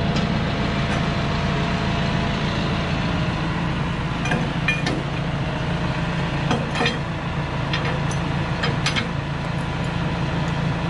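Manitou MRT telehandler's diesel engine idling steadily, with a scatter of sharp metallic clinks as the locking lever and pin at the boom-head coupling are worked to lock the basket attachment on.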